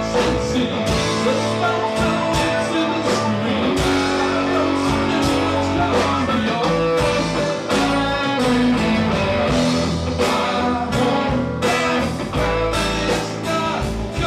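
Rock band playing a song at full volume, with electric guitar, bass and drums in a steady beat, counted in to run from verse into chorus and guitar solo. It is picked up by on-camera microphones.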